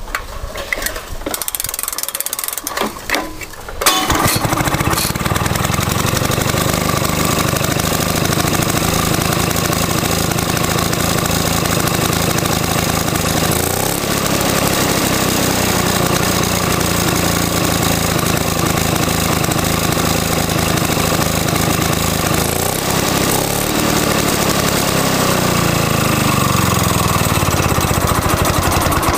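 Victa two-stroke lawn mower engine firing on its wind-up starter about four seconds in, then running steadily with small changes in speed. It sounds pretty lumpy through an exhaust with a big hole in it.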